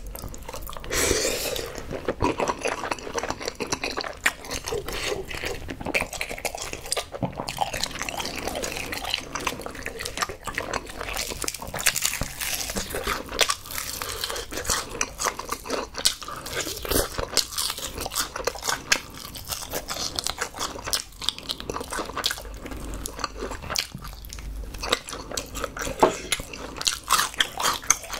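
Close-miked eating sounds: wet chewing of spicy rice cakes and fish cake, then crisp crunching as honey-glazed fried chicken is bitten and chewed, with many irregular small crackles and clicks.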